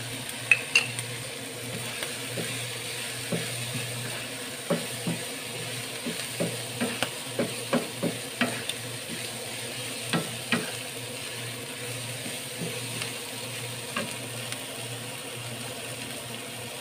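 Wooden spatula stirring field snails, chilies and aromatics in a nonstick frying pan: a steady sizzle of frying, broken by irregular knocks and clicks of the spatula against the pan, thickest in the middle and sparser toward the end.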